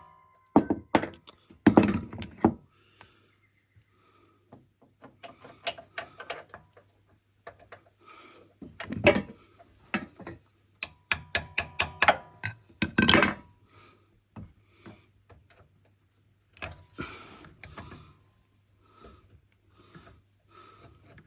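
A socket ratchet clicking in quick runs, with knocks and clunks of tools on metal, as a stuck screw is worked on. The screw is starting to round off.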